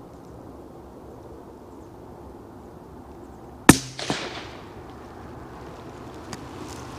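A single shot from a moderated CZ 455 rifle in .17 HMR about three and a half seconds in: one sharp, loud crack, followed about half a second later by a second, weaker crack that fades out. Before it, only a faint steady hiss.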